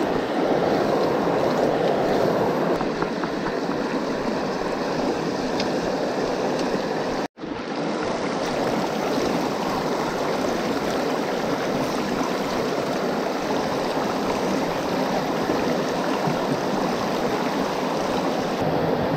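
River water rushing over a shallow rocky riffle: a steady, even hiss of moving water, broken once by a brief dropout about seven seconds in.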